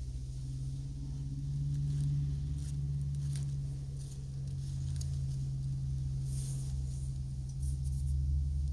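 A tortoise biting and tearing leaves, heard as faint crisp crunches and clicks every second or so, over a steady low hum.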